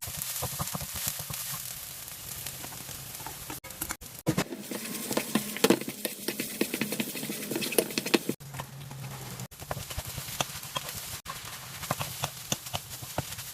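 Fried rice sizzling in a frying pan while a spatula stirs it, with many quick irregular taps and scrapes of the spatula against the pan over the sizzle.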